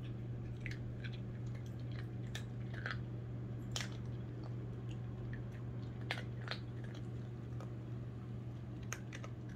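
Small Pomeranian–Chihuahua mix dog chewing dry kibble: irregular crisp crunches, a dozen or so, over a steady low hum.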